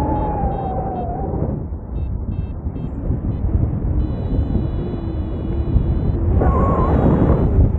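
Airflow rushing over the microphone of a paraglider in flight, with a paragliding variometer beeping: runs of short pips, and a longer held tone around the middle.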